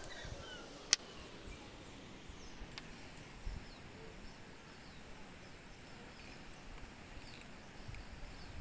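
Quiet rural ambience with faint, scattered bird chirps. About a second in comes a single sharp click, a disposable lighter being struck while held to a knot in a nylon cord.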